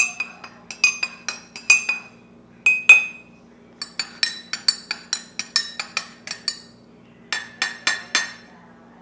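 Dishes and cutlery clinking: sharp clinks, some ringing briefly, coming in quick runs with short pauses between.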